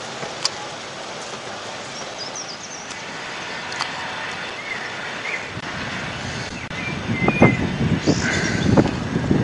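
Open-air ambience with wind rumbling on the microphone, growing louder and gustier in the last few seconds, and a few bird chirps in between.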